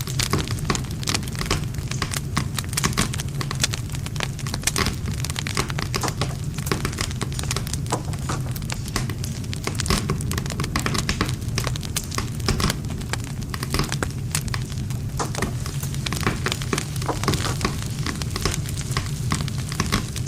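Wood campfire crackling and popping continuously, a dense stream of sharp snaps over a steady low rumble of the burning fire.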